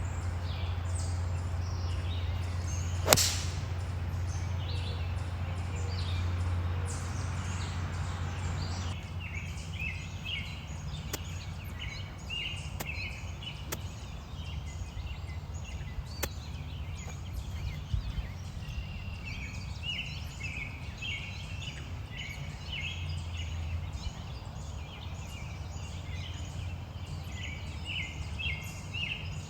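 A single sharp crack of a golf club striking the ball about three seconds in, over a low steady rumble. Then many birds chirping continuously.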